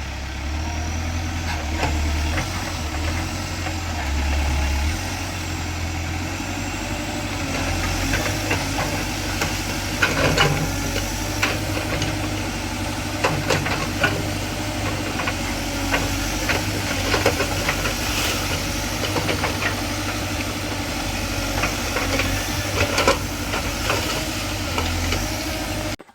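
Tractor engine running steadily, with repeated sharp knocks and clanks that come thick from about eight seconds in, then stops abruptly.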